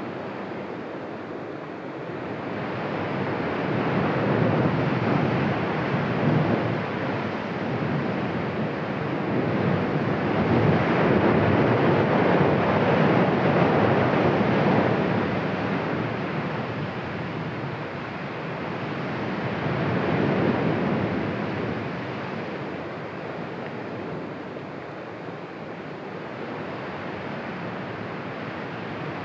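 Cumbre Vieja volcano erupting: a continuous rushing roar from the ash-venting cone that swells and fades in slow surges, loudest about ten to fifteen seconds in.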